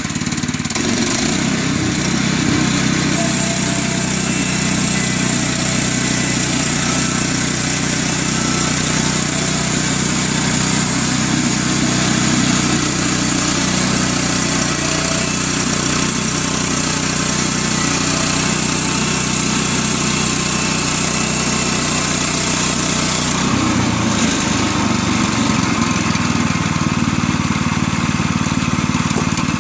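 Woodland Mills HM122 portable bandsaw mill running: its small gas engine runs steadily under load while the band blade saws along a log, with a high hiss from the cut. Near the end the hiss stops and the engine note shifts as the blade comes out of the log.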